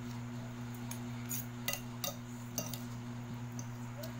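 Metal fork and spoon clinking and scraping against a glass plate while eating, a few light separate clinks, over a steady low hum in the room.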